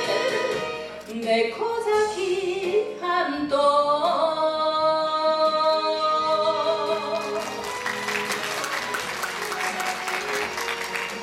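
A woman singing an enka ballad into a microphone over a recorded backing track, ending a line on a long held note about seven seconds in; the audience then applauds while the instrumental music carries on.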